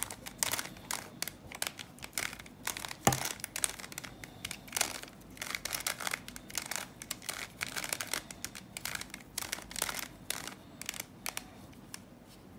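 Bermuda Uranus cube, a plastic twisty puzzle, being turned by hand: a quick, irregular run of plastic clicks and clacks as its faces are twisted through a move sequence, stopping near the end.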